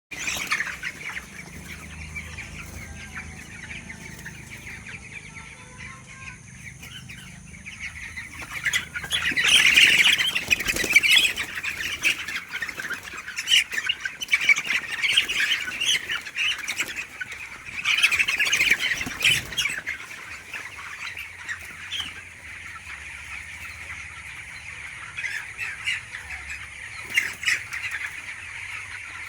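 A flock of young chickens chirping continuously in a dense chorus, with two louder spells of commotion, about a third of the way in and again near two-thirds.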